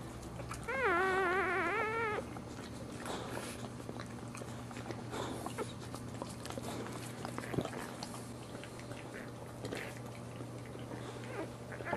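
A newborn Boxer puppy cries once, a high, wavering squeal of about a second and a half, starting about a second in. After that come soft licking and rustling sounds as the mother licks the puppies on the bedding.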